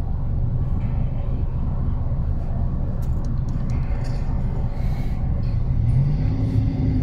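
Steady low rumble of a car's engine and tyres moving in traffic. About six seconds in, the engine note rises as the car picks up speed.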